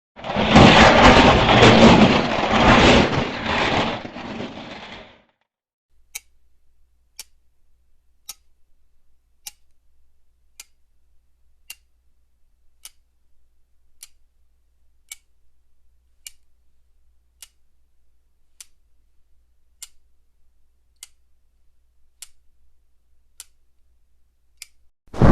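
A loud rushing noise for the first five seconds that then dies away. After it comes a steady, even ticking, about once a second, over a faint low hum.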